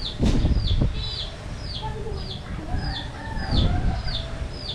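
A rooster crowing, starting about two seconds in. Throughout, a short, high, falling chirp repeats about twice a second, and low rumbling bursts come near the start and again late on.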